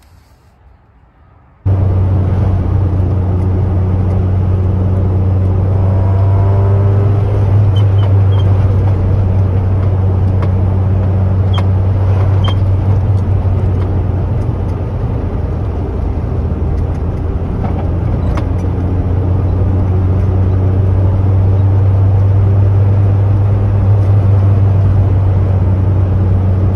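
Honda B20VTEC four-cylinder engine and its Magnaflow-muffled exhaust droning steadily as the car cruises, heard inside the cabin. It starts abruptly about two seconds in.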